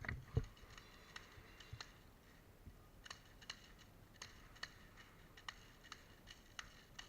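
A low thump at the start, then a series of faint, sharp clicks at irregular intervals, about one or two a second.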